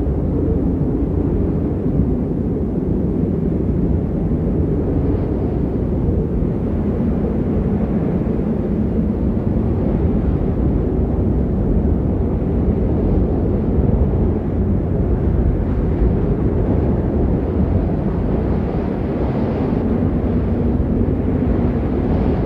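Steady, low rumbling wind noise of a snowstorm sound effect, unbroken and without distinct events.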